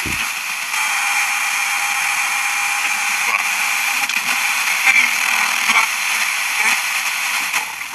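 Static hiss from a portable multiband radio's speaker as its tuning wheel is turned slowly across the FM band between stations. A faint steady tone comes in about a second in, and a few brief blips show in the noise.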